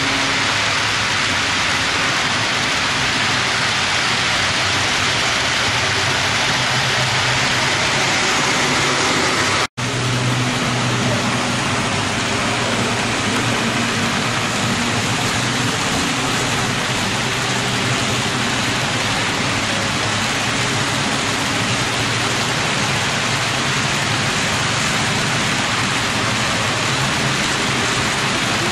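HO-scale model freight train running on the layout track: a steady rolling rush of wheels and motors with a faint low hum, cutting out for an instant about ten seconds in.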